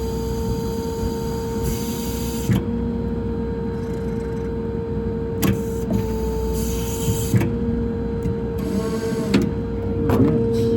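IMT crane's hydraulic system on a Ford F550 service truck running as the boom is lowered: a steady whine, with a few sharp clicks and two short hisses.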